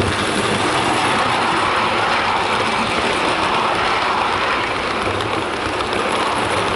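Bachmann OO gauge LBSC H1 Atlantic model steam locomotive hauling seven Pullman coaches past close by: steady rolling noise of the model's wheels on the track, running smoothly under load.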